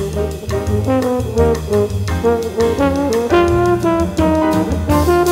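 Jazz music led by brass (trombone and trumpet), with a steady beat.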